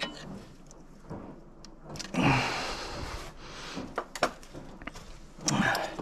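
Hands working a washing machine's wiring harness and plastic connectors loose, with rustling and a few clicks. A longer rustle comes about two seconds in.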